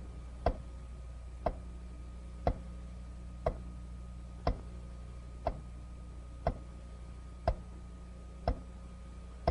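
Sharp, evenly spaced ticks, one every second, over a steady low hum.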